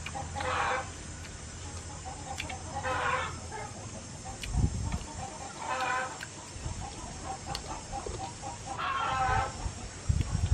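Chickens clucking: four short calls, about one every three seconds, with a couple of low bumps in between.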